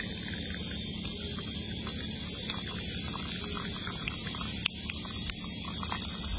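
A thin jet of water hissing steadily as it sprays out of a needle puncture in a water-filled rubber balloon, with a few light ticks and patters.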